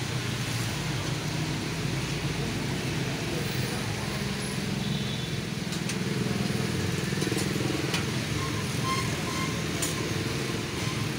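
Steady hum of road traffic, vehicle engines running, with a few light clicks.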